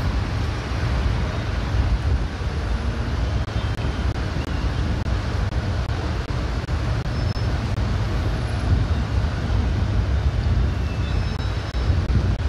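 Steady low outdoor rumble of distant road traffic, with a few faint high short tones.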